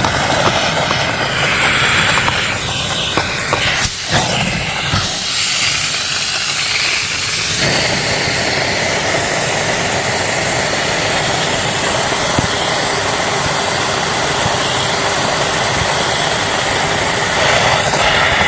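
Vacuum cleaner running steadily with a loud hissing rush of air, its sound shifting about a third of the way in as the nozzle is worked over the car.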